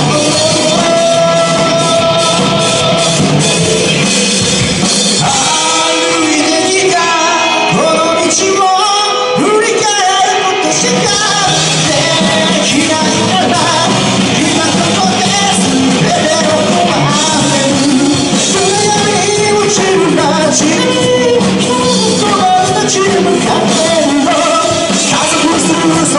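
Live rock band playing loudly: electric guitars, bass and a drum kit under a sung male lead vocal, in a large hall.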